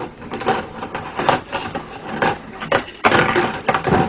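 Irregular knocks and clatter of kitchen things being handled, such as containers and utensils. It grows busier and louder about three seconds in.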